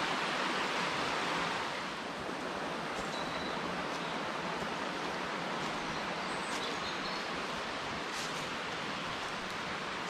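Mountain stream rushing steadily, a little softer after about two seconds. A few faint, short, high chirps in the second half.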